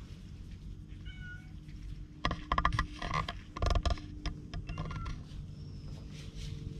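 Ginger-and-white stray cat giving short meows, once about a second in and again near five seconds, with loud scuffing and knocking against the microphone in between as it rubs against the hand and camera.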